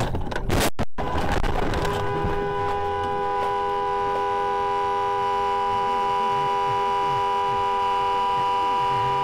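A car collision: a sudden crash impact about half a second in, then a car horn held on in a steady, unbroken two-note blare.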